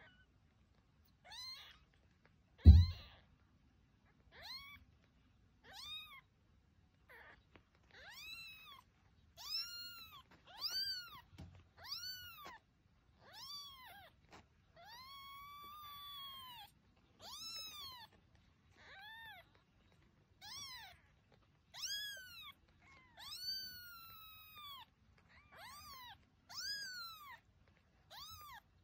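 Newborn kittens mewing: a run of short high cries, each rising then falling in pitch, one every second or so, with one longer cry about halfway through. A loud thump comes about three seconds in.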